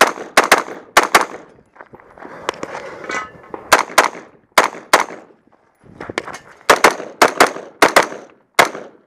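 AR-15 rifle firing about sixteen shots, mostly in quick pairs and threes a quarter to half second apart, with a pause of about two and a half seconds after the first volley.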